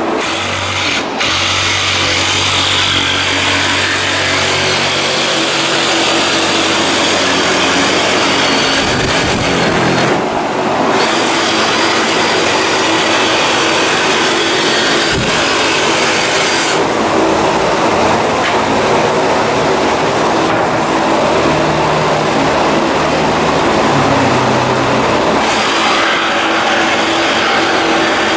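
Loud, steady machine noise with a constant hum running underneath, dipping briefly in its upper range about ten seconds in.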